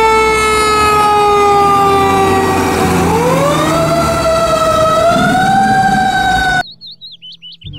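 Fire truck siren on a tiller ladder truck: one long tone that slowly falls for about three seconds, then climbs and holds at a higher pitch, over a low engine rumble. It cuts off abruptly near the end.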